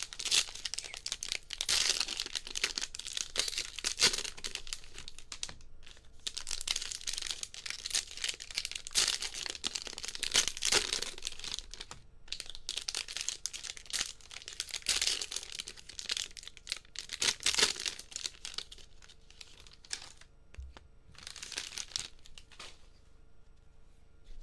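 Cellophane wrappers of baseball-card value packs crinkling and tearing as they are ripped open, in several bouts of crackle with short pauses between.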